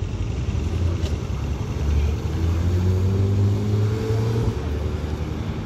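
Porsche 911 flat-six engine accelerating away, its note rising steadily from about two seconds in and easing off near the end, over city traffic.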